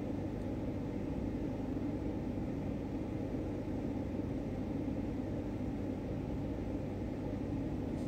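Steady low hum and hiss of room background noise with no speech.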